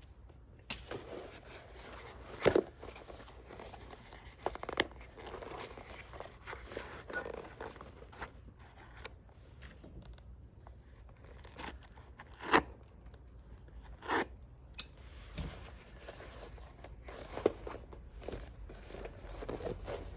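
Hand work on a leather boot: irregular tearing, crunching and rustling, with a few sharp snaps, the loudest about two and a half seconds in and again around twelve and fourteen seconds.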